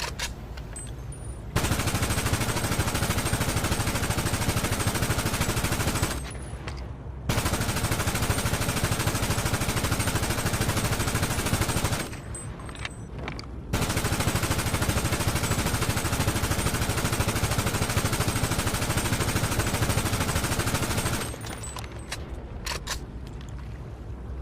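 AK-pattern Mini Draco firing fully automatic from a drum magazine in three long, continuous bursts of about five to seven seconds each, with short pauses between them and a few sharp clicks after the last burst.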